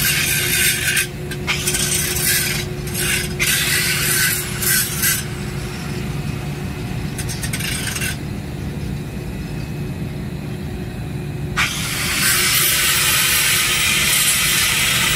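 Angle grinder grinding a steel pipe joint: the disc bites in short passes of about a second each through the first five seconds with the motor running between them, then one steady, longer grind over the last few seconds.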